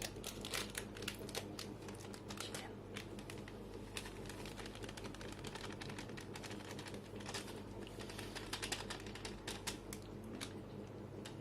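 Light, irregular clicking and crinkling of a spice packet being handled and emptied onto chicken, over a low steady hum.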